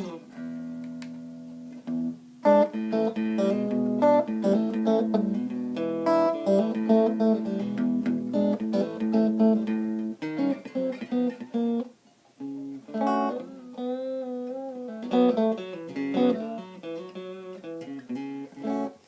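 Electric guitar played clean through a Marshall Class 5 5-watt amp, pickup selector in the fourth position: the Lace Sensor neck pickup combined with the middle pickup. A run of single notes and chords, a short break about twelve seconds in, then a bent note held with vibrato.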